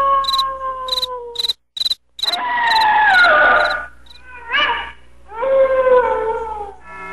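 Crickets chirping about twice a second, stopping about halfway through, under a series of long howls. The howls are held and then slide down in pitch, with one short rising howl in between. The sound drops out almost completely for a moment about one and a half seconds in.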